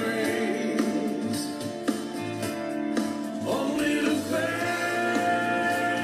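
A recorded song playing: a singing voice over sustained instrumental chords, with long held notes.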